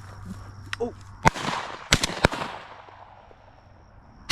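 Shotgun blasts at doves: three shots in quick succession about a second in, each trailing off in a rolling echo, with another shot right at the end.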